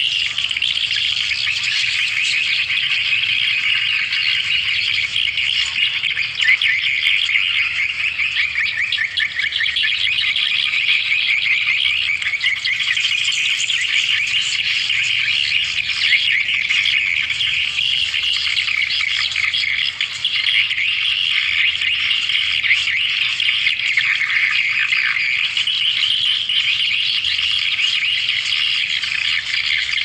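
Swiftlet lure call: a dense, unbroken chatter of many fast swiftlet chirps, the twittering played through a nest-house speaker to call swiftlets in to roost.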